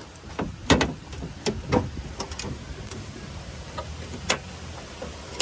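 Old gas golf cart's engine running steadily with a low hum, with several sharp clicks and knocks over it.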